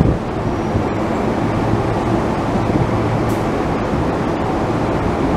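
Keio 8000 series electric train standing at a station platform, its onboard equipment giving a steady hum under a constant rumble of noise.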